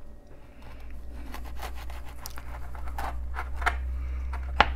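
Serrated knife sawing slowly through a once-baked biscotti log on a plastic cutting board: a run of scratchy, crunching strokes, with one sharp tap near the end.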